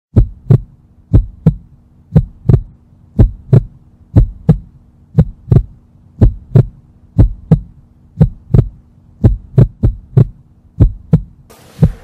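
Heartbeat sound effect: a double low thump (lub-dub) about once a second, evenly paced, over a faint steady hum.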